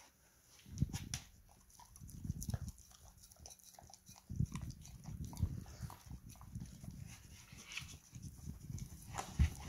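Border collie licking a plate clean: an irregular run of tongue laps and slurps against the plate, with small clicks.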